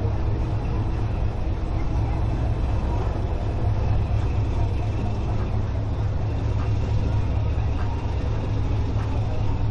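Motor yacht engines running with a steady low rumble as the boat cruises past, over an even wash of water and wind noise.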